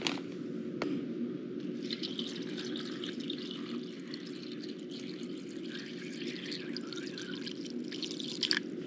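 Water poured in a thin stream onto a block of dry instant ramen noodles in a plastic container, starting about two seconds in and stopping abruptly shortly before the end.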